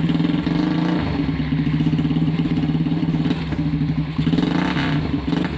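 Custom motorcycle's single-cylinder air-cooled engine idling steadily, its exhaust beating in an even pulse.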